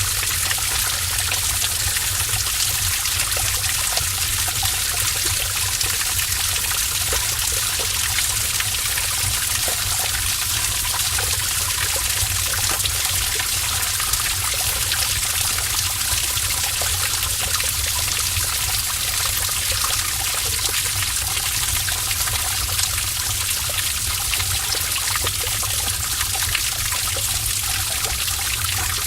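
A stream of water trickling and splashing steadily in a cave, with small splashes scattered through it. A steady low rumble runs underneath.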